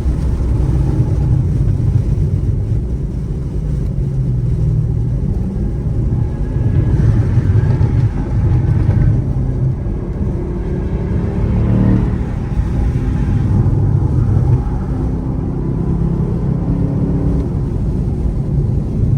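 Chevrolet Camaro SS's 6.2-litre V8 engine and exhaust running under way, the engine note rising and falling with the throttle, with a short rise in pitch about twelve seconds in.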